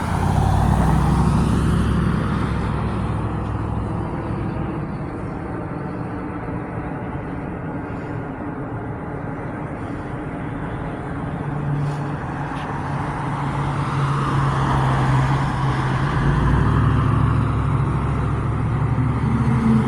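Motor vehicle engines passing, a low hum that swells just after the start, eases off, then builds again near the end as another vehicle comes by.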